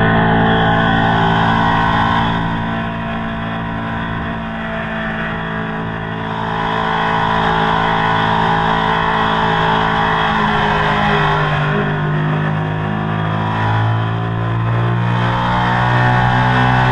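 Ducati Panigale engine through a Termignoni exhaust, running under way at a steady pitch. The pitch falls about ten seconds in as the throttle eases, then climbs again toward the end as the bike accelerates.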